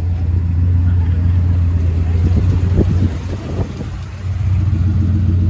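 A motor vehicle running, with a steady low drone. Faint muffled voices come in briefly around the middle.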